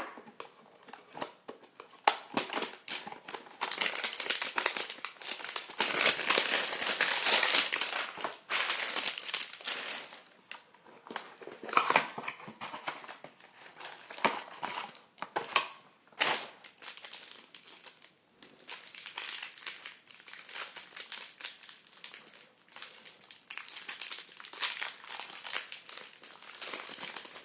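Plastic wrapping on a retail trading-card hanger box and its card packs being torn open and crinkled by hand, with irregular crackles and snaps throughout.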